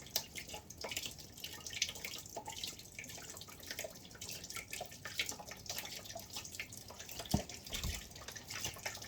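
Engine coolant dripping and trickling from a disconnected hose into a catch tub: many irregular drops. There is a dull knock about seven seconds in.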